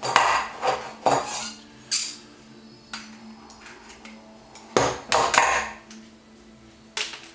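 Arrow T50 heavy-duty staple gun's steel body clanking and scraping as it is worked and opened up to clear a jammed staple: a series of sharp metal clanks, with a cluster of them about five seconds in.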